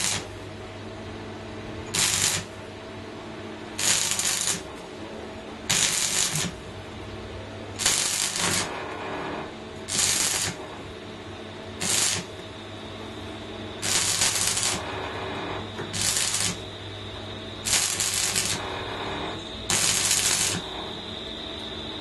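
Electric arc welding on a bicycle frame tube, the arc struck eleven times in short bursts, one about every two seconds, over a steady low hum.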